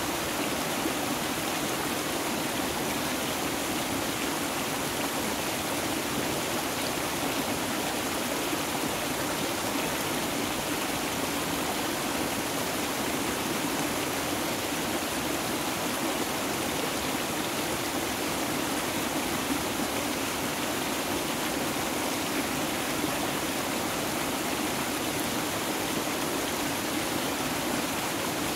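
Steady, unbroken rush of flowing water from a mountain stream.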